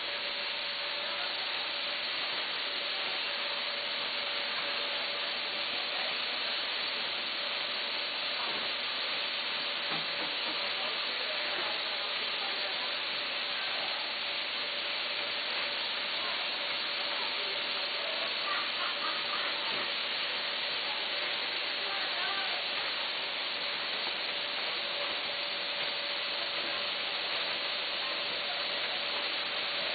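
Vertical form-fill-seal snack packaging machines running: a steady machinery hiss with a faint steady hum.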